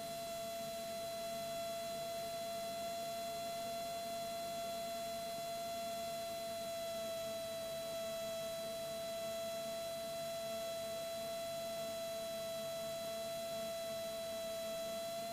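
A steady electrical whine with a ladder of overtones on the aircraft's intercom audio, over faint hiss. Its pitch sags slightly about seven seconds in and climbs back near the end.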